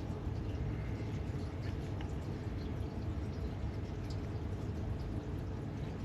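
Steady low rush of water flowing through the water heater's piping and mixing valve while a hot tap is running, with a few faint ticks.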